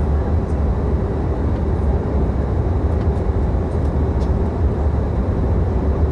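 Passenger airliner cabin in flight: a steady, heavy low rumble of engine and airflow noise with a faint constant hum over it.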